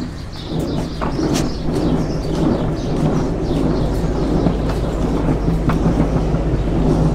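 Hard plastic wheels of a child's ride-on toy car and a kick scooter rolling fast over a tiled and paved floor: a steady rolling noise with a low hum, starting about half a second in.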